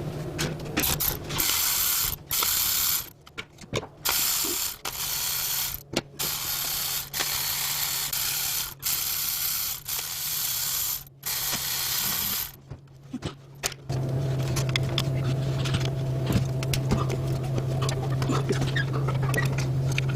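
Power ratchet wrench running in short bursts, stopping and starting as it spins out bolts during an engine teardown. About two-thirds of the way through it gives way to a steady low hum.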